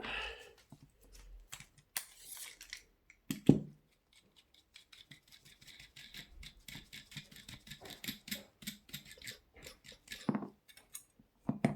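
Metal hand tools on a bicycle hub's axle nuts: clicks, scrapes and knocks as the locknuts are loosened with a cone wrench and an adjustable spanner. One sharp knock comes about three and a half seconds in, followed by a long run of quick light clicks and a few more knocks near the end.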